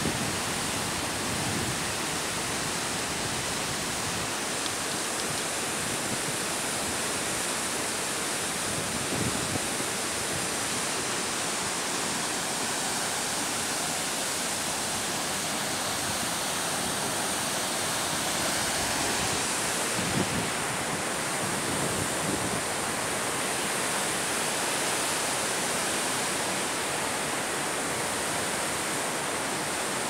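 Fast mountain river rushing over boulders: a steady, even rush of whitewater.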